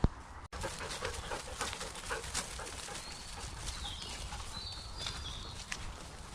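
Small birds chirping a few short high notes around the middle, over irregular light taps and clicks.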